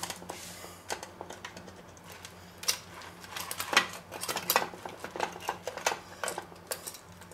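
Irregular metal clicks and clinks of pliers gripping and working a hot metal spit fork loose from a roast chicken in a stainless steel roasting tray, with a few louder clanks about halfway through. A faint steady low hum runs underneath.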